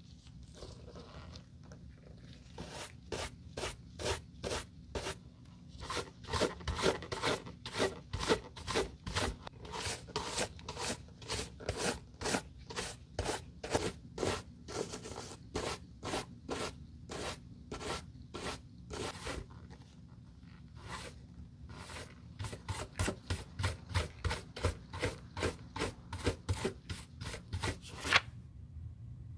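A wooden-backed shoe brush is scrubbed in quick back-and-forth strokes, about two a second, over the mold-spotted leather of a black Prada loafer, dry-brushing off the mold. The strokes pause briefly about two-thirds of the way through, and one sharper, louder stroke or knock comes near the end.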